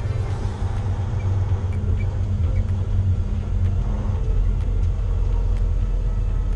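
Volvo VNX heavy-haul truck's diesel engine and road noise heard inside the cab as it drives under load: a steady low rumble.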